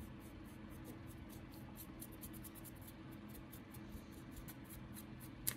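Faint, quick scratchy strokes of a paint brush dry-brushing a plastic miniature, several strokes a second, with one sharper click near the end. A steady low hum lies underneath.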